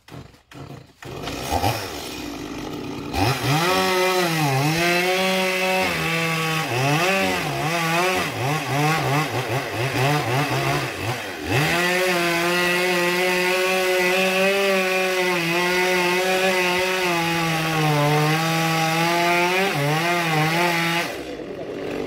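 Stihl chainsaw running at full throttle while cutting into a coconut palm trunk. Its pitch sags and recovers again and again as the chain bites, then it holds a long steady cut. It drops off about a second before the end.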